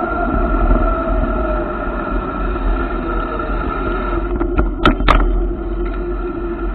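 Motorcycle engine running steadily with rumble on the mounted camera. A few sharp knocks come about four and a half to five seconds in, as the bike rides over a speed breaker.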